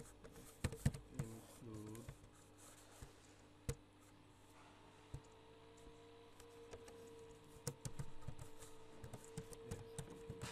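Computer keyboard typing: scattered, irregular key clicks over a faint steady hum.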